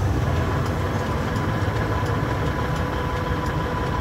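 Semi truck's diesel engine idling steadily while stopped, heard from inside the cab, with a faint steady whine over the low rumble.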